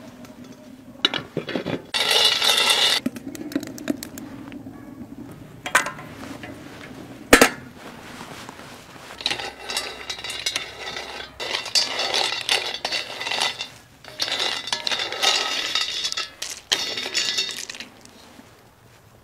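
Small nuts rattling and scraping in a black metal wok as they are tipped in and stirred with a wooden spoon, in a series of rattling bursts, with one sharp knock about seven seconds in.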